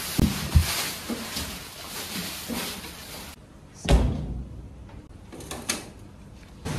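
Knocks and thumps of whole lamb carcasses being handled: two low knocks near the start as they are moved on the steel hanging hooks, then a heavy thud about four seconds in as a carcass is handled on a cutting table. A few lighter clicks follow. A steady hiss lies under the first three seconds.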